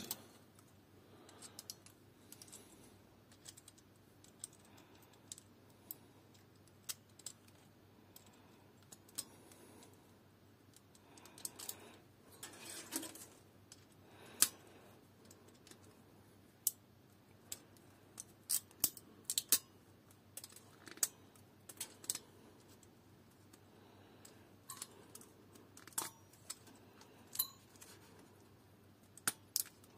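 Faint, irregular clicks and snips of steel pliers and diagonal side cutters gripping and chopping the plastic push-pin legs of an Intel stock CPU cooler. They come more often in the second half, and the loudest snap is about fourteen seconds in.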